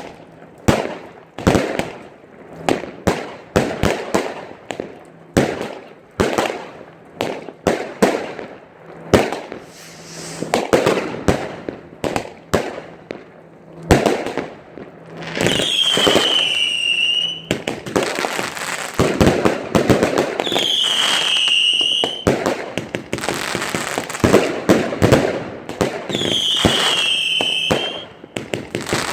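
Fireworks going off: a quick, irregular string of bangs and crackling. In the second half, three high whistles sound, each lasting about two seconds and falling slightly in pitch.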